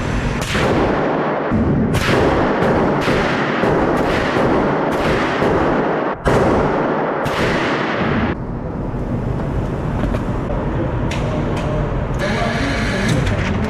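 A rapid string of about a dozen gunshots, fired in quick semi-automatic succession for about eight seconds, each shot trailing off in a short echo; a few fainter shots follow near the end.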